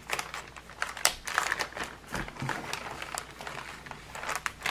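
Clear plastic zip-lock bag crinkling and rustling as fingers pull it open and handle it, with many small sharp crackles.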